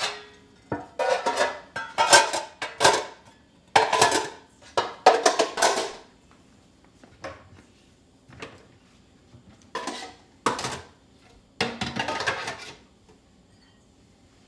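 Dishes clinking and clattering as they are handled, in several short bursts with a brief ringing.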